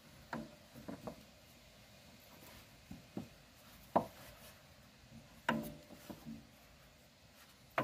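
Small mini tube cutter being turned and adjusted around a steel brake line, giving a series of short clicks and scrapes; the sharpest click comes about four seconds in, and one about a second and a half later rings briefly like metal.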